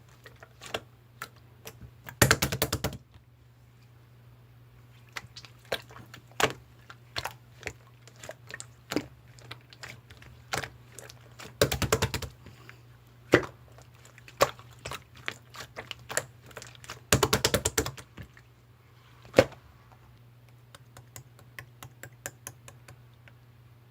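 A string of sharp, irregular clicks and taps, with three short runs of rapid clicking about two seconds in, near the middle and about three quarters of the way through. A faint steady low hum lies underneath.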